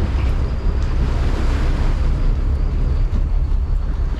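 Sport-fishing boat's engine running steadily under way, with water rushing along the hull and wind buffeting the microphone.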